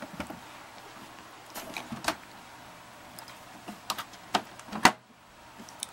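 Handling noise from a Panasonic RQ-705 portable reel-to-reel tape recorder's case as it is moved and turned upright: about half a dozen scattered clicks and knocks, the sharpest near the end.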